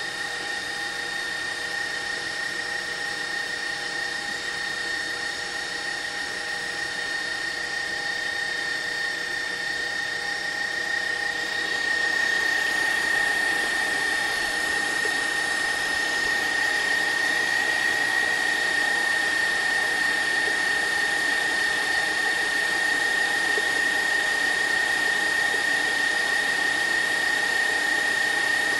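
Electric stand mixer motor running steadily with a steady whine, beating a batter in its steel bowl on a long mixing run; it gets a little louder about twelve seconds in.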